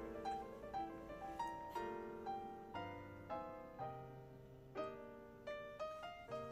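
Background music: a light, unhurried tune of short struck notes, about two notes a second, over a few low bass notes.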